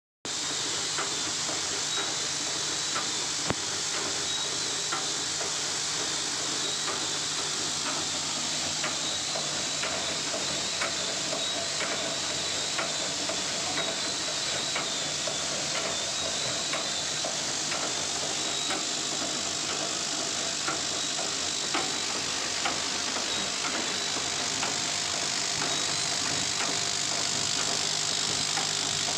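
Automatic camphor tablet pouch packing machine running: a steady mechanical hiss and hum with faint, regular clicks.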